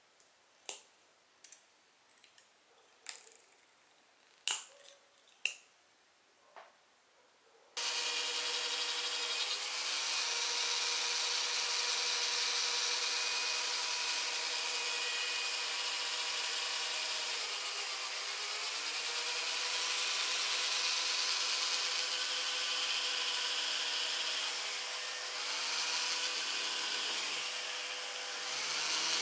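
A handful of small metallic clicks from pliers working a steel wire. Then, about eight seconds in, a small handheld electric rotary drill starts with a steady whine and runs while drilling a plastic bottle cap, its pitch dipping slightly a few times.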